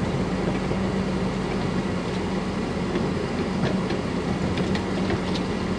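Vehicle engine running steadily at low speed, with the tyres rumbling and the vehicle rattling over cobblestone paving, heard from on board, with a few light clicks partway through.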